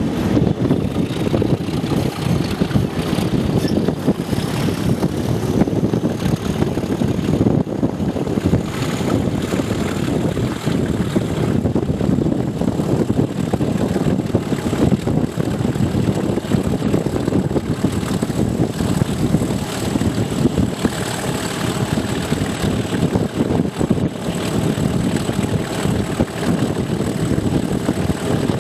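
English Electric Class 37 diesel locomotive running under power, heard close up from the first coach: a dense, steady engine sound. A thin high whistle rises over the first several seconds and then holds.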